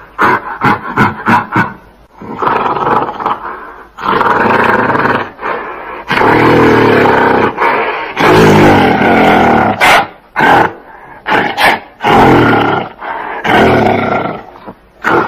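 Gorilla roaring: a quick run of short, sharp sounds at the start, then a series of long, loud roars, each lasting one to two seconds, with short breaks between them.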